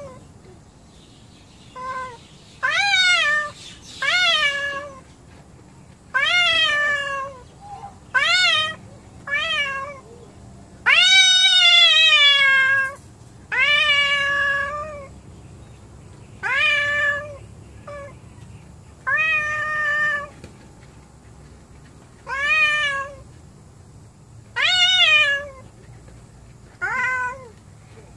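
Angry domestic cat yowling at another cat in a hostile standoff. About a dozen drawn-out, wavering yowls come roughly every two seconds, each rising and then falling in pitch, with the longest lasting about two seconds near the middle.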